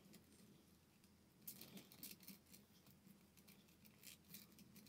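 Faint rustling and small clicks of rolled paper weaving tubes being handled and woven, scattered through the second half over near silence.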